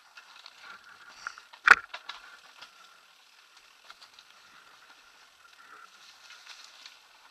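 Mountain bike, a Kona Satori 29er, rolling down a dirt singletrack covered in dry leaves: tyre crunch and rattling of the bike, with scattered clicks and one sharp knock just under two seconds in.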